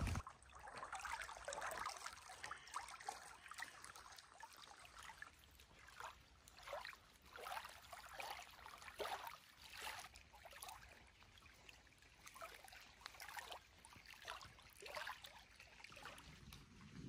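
Small waves of lake water lapping against the shore: a quiet run of soft, irregular splashes and trickles, one every second or so.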